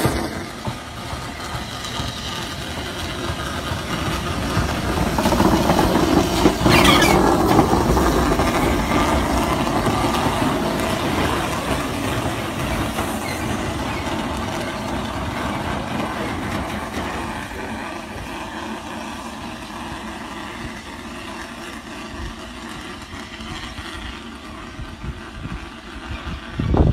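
Southern Railway S15 class steam locomotive No. 847 running along the line and drawing away. Its sound is loudest about six to eight seconds in, with a short sharp burst near seven seconds, then fades gradually as it recedes.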